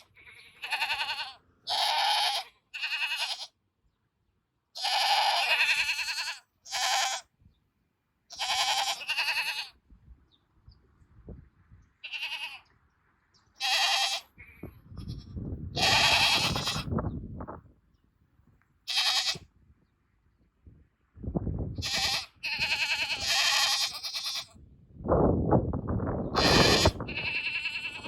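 Several goats bleating in chorus, one loud call after another with short pauses between them. A low rumbling noise runs under some of the calls in the second half.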